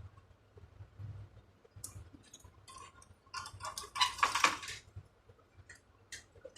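Small tools and parts being handled on a workbench: scattered light clicks and clinks, with a louder stretch of scraping and clattering about halfway through.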